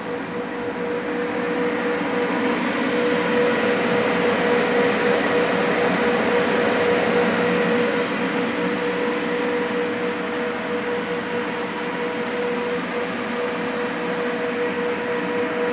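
The LS variable-frequency inverter and its cabinet cooling fans run under load while driving a 110 kW submersible pump, giving a steady rushing fan noise with a steady electrical whine. The sound grows louder over the first few seconds as the cabinet opens up to view.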